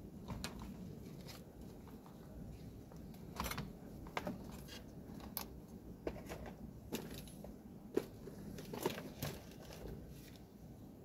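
Scattered light clicks and knocks of hard plastic parts and hand tools being handled on a workbench, as the opened lid assembly of a rice cooker is pressed together and tools are picked up.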